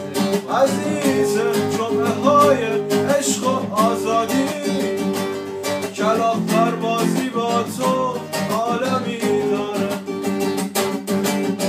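Music: a Persian song with strummed acoustic guitar and a gliding melody line over it.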